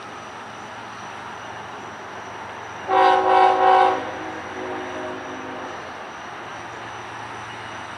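Freight diesel locomotive's multi-chime air horn sounding three quick blasts in about a second, about three seconds in, followed by a fainter, lower horn chord that dies away.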